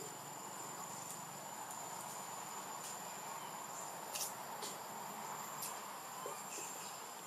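Steady high-pitched buzz of insects, with a few short faint clicks, the sharpest about four seconds in.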